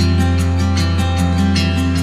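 Background music with strummed acoustic guitar, a steady beat and a low bass note held through.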